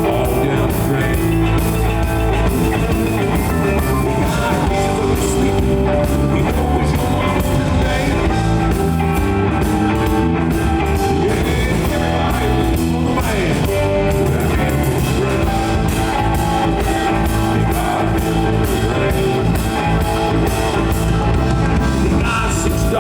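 Live blues-rock band playing an instrumental passage: electric guitar over bass and a steady drum kit beat.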